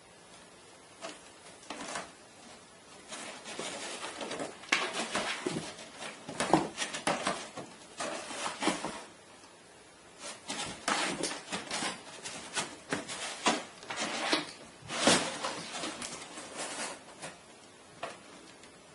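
Cardboard box and its cardboard dividers scraping, rustling and knocking as a cat forces its way in among them, in irregular clusters of scrapes and taps that start in earnest about four seconds in and die down near the end.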